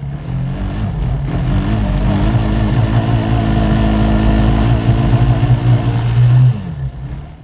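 Small gasoline engine of an off-road kart running hard under way on dirt, its pitch climbing a little and then holding. It drops away near the end as the throttle eases off.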